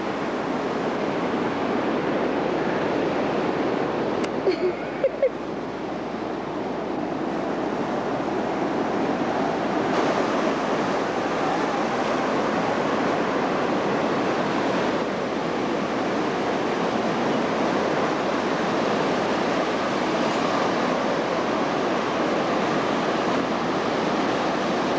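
Ocean surf breaking on a sandy beach: a steady rushing wash of waves. A few brief short sounds stand out about five seconds in.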